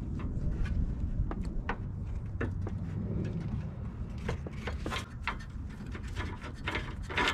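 Scattered light clicks and taps of metal fittings and parts being handled while an AC condenser line is connected under the hood, over a steady low rumble.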